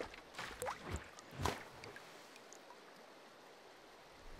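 Watery bubbling and gurgling sound effects: a few short swooshes and bloops, some rising in pitch, in the first second and a half, then a quiet stretch.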